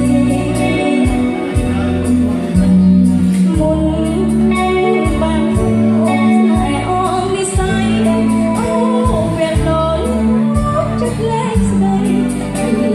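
A woman singing live into a microphone over amplified band accompaniment, with long held bass notes and a steady beat.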